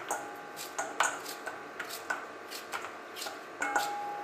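Kitchen knife cutting a peeled raw potato held in the hand into thin strips, a quick series of short cutting clicks two or three a second, with the strips dropping into a stainless steel bowl. A brief metallic ring near the end.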